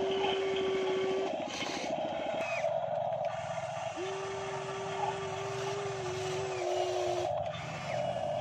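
RC hydraulic excavators running, their pump and motors making a steady whine over a fast pulsing hum as they dig wet mud. The whine cuts out about a second in and returns about four seconds in, holding for about three seconds.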